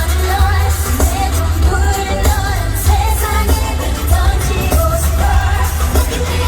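K-pop song played live through a stadium sound system: women singing over a pop backing track with heavy, pounding bass.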